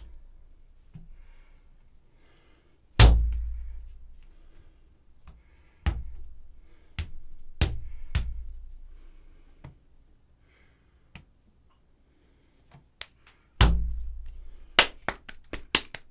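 Lumps of wet clay being slammed and thumped down on a plaster wedging table as the clay is wedged. There are two heavy thumps with a low boom, lighter thuds in between, and a quick run of sharper slaps near the end as a piece is patted and shaped by hand.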